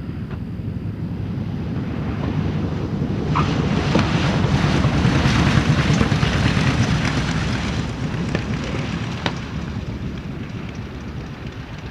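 The twin Wright R-2600 radial engines of a B-25J Mitchell bomber run at high power as the aircraft passes. The rough roar grows louder to a peak a few seconds in, then fades away.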